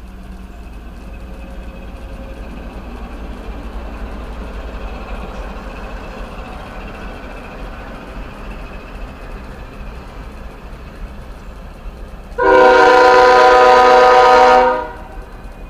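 Norfolk Southern intermodal train rolling past with a steady rumble of wheels and trailers on flatcars. Near the end the locomotive's air horn sounds one loud blast of several tones at once, lasting about two and a half seconds.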